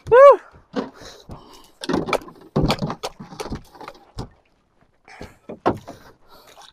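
Irregular knocks and thumps of gear and bodies moving about a small outrigger fishing boat, opening with a short squeak that rises and falls in pitch.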